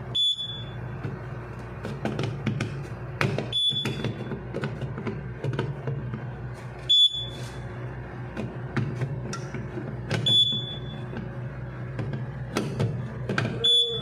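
A short, high electronic beep from the fire alarm system repeats about every three and a half seconds, five times in all, over a steady low electrical hum. Light plastic clicks come from the smoke detector head being handled and turned in its base.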